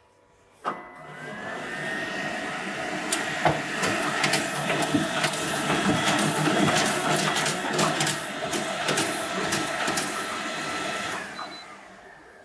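Two-drum Risograph stencil printer running a short two-colour print job. It starts with a knock under a second in, then its motor whine rises and holds steady under a busy clatter of sharp clicks as sheets are fed through and ejected. Near the end it winds down, the whine falling away.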